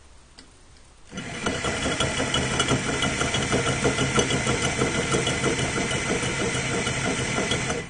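Electric drill with a 14 mm masonry bit grinding through a ceramic toilet cistern lid to enlarge its hole, starting about a second in and running steadily, then stopping.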